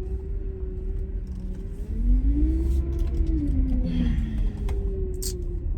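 Truck cab rumble from the engine and road, under music playing from the radio: a long held note, with a second pitched line that slides up, holds and falls away in the middle.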